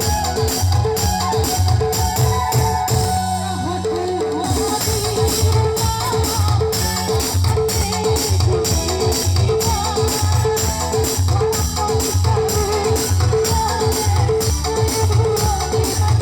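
A band playing music with a steady, even drum beat under a melody line.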